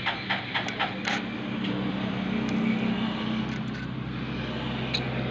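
Electric arc from a carbon rod soldering a starter motor's carbon-brush lead: sharp crackling for about the first second, then a steady buzzing hum with a hiss while the joint glows.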